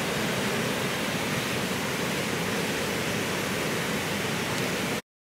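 Steady rush of water pouring through a concrete channel, cutting off abruptly near the end.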